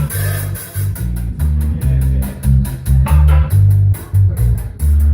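Live instrumental band playing: a prominent bass guitar line of short held low notes under guitar, with drum-kit cymbals ticking in a steady rhythm.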